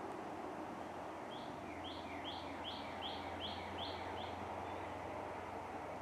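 A songbird sings one phrase of about eight quick repeated notes, roughly two and a half a second, with the last note fading, over a steady outdoor background hiss.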